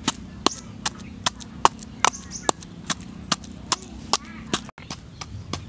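Wooden pestle pounding chili in a small bowl: sharp wooden knocks in a steady rhythm of about two and a half a second, with a brief break near the end.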